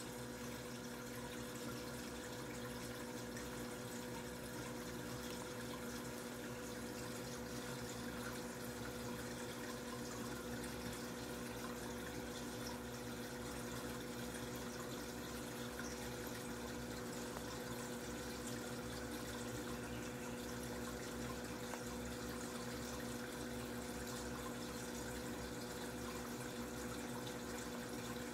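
Aquarium equipment running: water trickling steadily under a constant low hum, with no change throughout.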